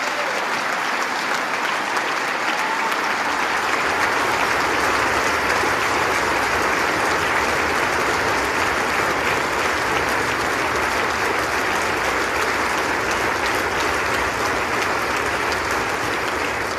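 Members of Congress in a large audience applauding steadily.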